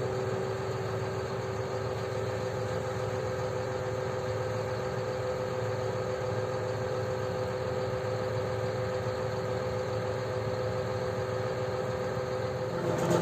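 Heavy farm machine engine running steadily, with two steady whining tones over it; it grows louder right at the end.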